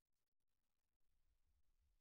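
Near silence, with only a very faint low hum.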